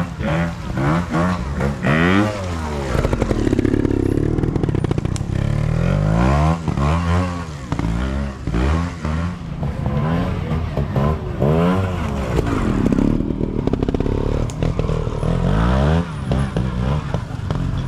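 Trials motorcycle engine worked hard through a section, the throttle blipped over and over so the revs rise and fall every second or two.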